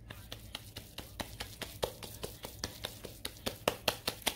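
Hands squeezing and patting moist minced chicken and chana dal kabab mixture into patties: a run of quick slaps, about four or five a second, getting louder near the end.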